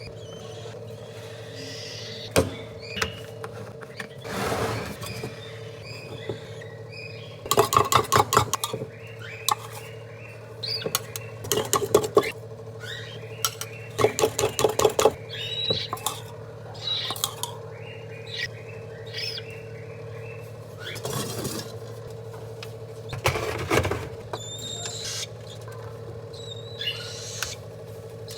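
Pet Australian parrot giving short high chirps and chattering, with several bursts of rapid clicking in between.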